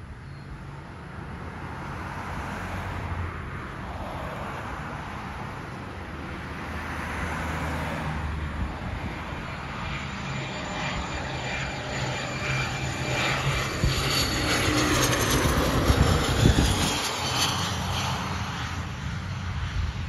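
Small twin-engine business jet on final approach, its engine whine growing steadily louder as it comes in low. It is loudest about 16 seconds in, where the high whine falls in pitch as the jet passes, then it eases off as the jet reaches the runway.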